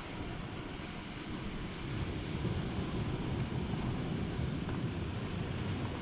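Wind rumbling on the microphone over a steady rush of the sea, getting a little louder about two seconds in.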